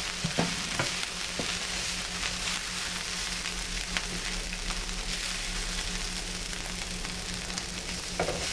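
Fried rice sizzling steadily on a non-stick electric griddle plate, with a few clicks of a spatula against the plate in the first second or so and once around four seconds in. A steady low hum runs underneath.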